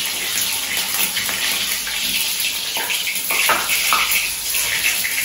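Mustard seeds spluttering in hot oil: a steady sizzling hiss with a few sharp pops about three to four seconds in.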